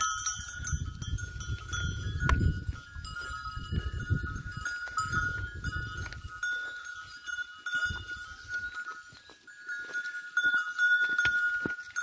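Bells on a grazing flock of sheep and goats ringing and clinking steadily as the animals move, over a low rumble that fades after about six seconds.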